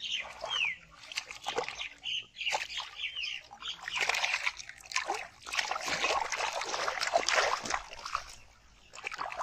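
Shallow muddy paddy water splashing and sloshing in irregular bursts as a large fish thrashes while being grabbed by hand. The splashing is heaviest through the middle and eases near the end.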